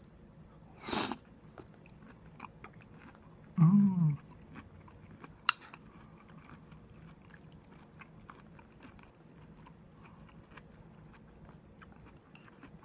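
Close-up mouth sounds of a person eating: soft chewing and small clicks throughout. A brief noisy burst comes about a second in, a short low 'mm' falling in pitch near four seconds is the loudest moment, and a single sharp click follows shortly after.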